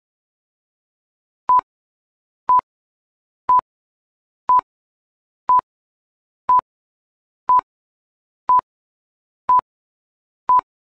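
Quiz countdown timer sound effect: ten short, identical beeps, one a second, counting down the time allowed to answer.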